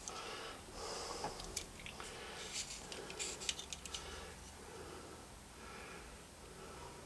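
Faint close breathing with a few light clicks of small objects being handled, clustered in the first half.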